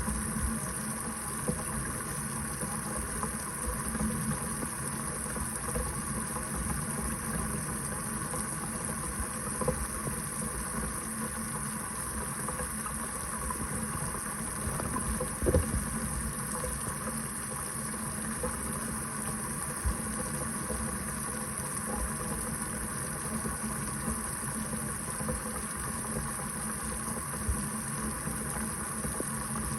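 Kitchen faucet running steadily into a sink, an even rush of water. One brief knock stands out about halfway through.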